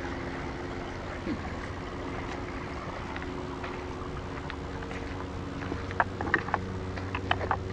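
Small forest waterfall rushing steadily, with a low steady hum underneath. Several sharp clicks or snaps come near the end.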